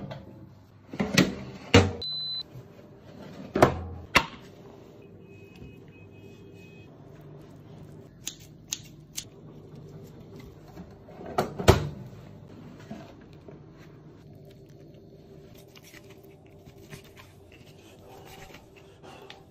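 Countertop oven being loaded and shut: several knocks and clatters of the door and baking tray in the first few seconds, a short electronic beep from the control panel about two seconds in, then a steady low hum with a few scattered knocks.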